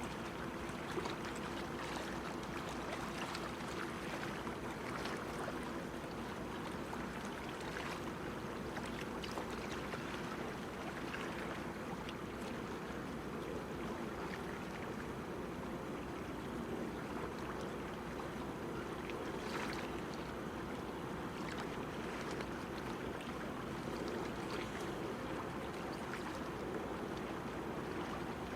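Harbour-side ambience: a steady wash of water against the breakwater, with scattered small splashes and a faint steady hum.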